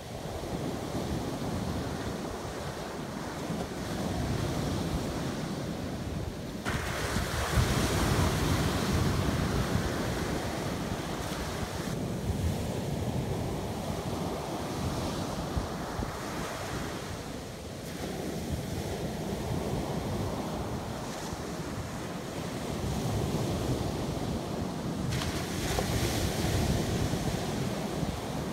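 Small ocean waves breaking and washing up a sandy beach, a steady rush of surf with wind rumbling on the microphone. The hiss of the wash swells sharply about seven seconds in and again near the end as bigger waves break.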